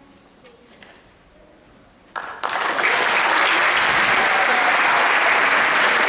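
Audience applause starting suddenly a little over two seconds in and holding steady, after a couple of quiet seconds in which the choir's last sung chord dies away in the hall.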